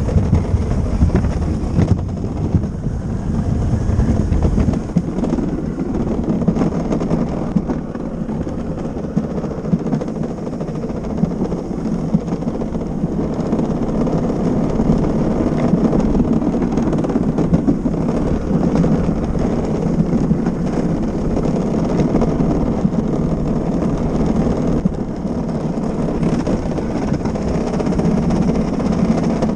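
Luge cart's wheels rolling fast down a paved track: a steady, loud rumble and rattle, heaviest in the lowest range for the first few seconds.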